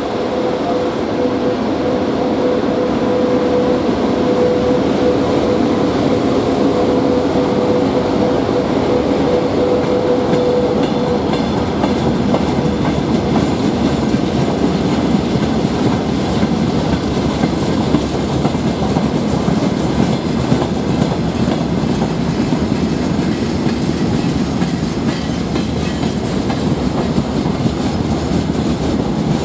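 A VL80T twin-section electric freight locomotive passes with a steady hum for the first ten seconds or so. Then a long string of open freight wagons rolls by, their wheels rumbling and clattering over the rail joints.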